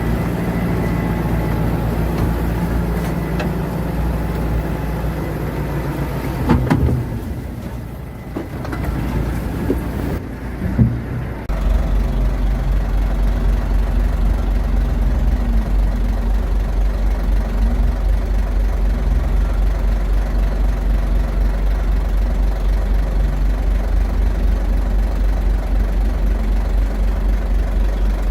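Heavy earthmoving machine's diesel engine running steadily. It drops quieter about a quarter of the way in, with a couple of knocks. Then it comes back suddenly louder and stays steady to the end.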